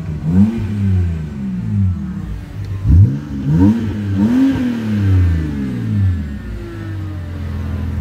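BMW 325i's N52 straight-six engine revved in a series of about six quick throttle blips, each rising and falling in pitch, the loudest about three seconds in, then settling back to a steady idle.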